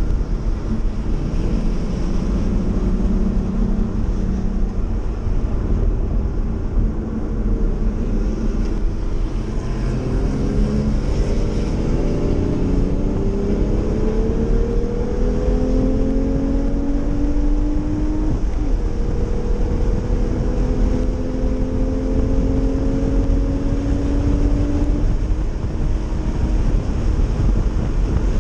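Porsche 911's flat-six engine heard from inside the cabin at track speed: it pulls up steadily through the revs, shifts up about two-thirds of the way in, pulls up again, then eases off near the end. Steady road and wind noise underneath.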